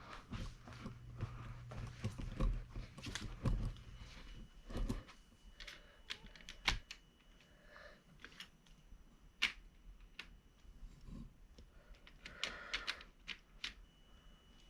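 Irregular sharp clicks, taps and knocks of small hard plastic objects being handled, with a low hum for the first few seconds.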